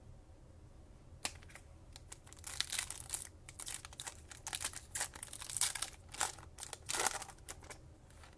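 Foil wrapper of a Panini Mosaic football card pack being torn open and crinkled: a sharp snap about a second in, then irregular crackling for several seconds.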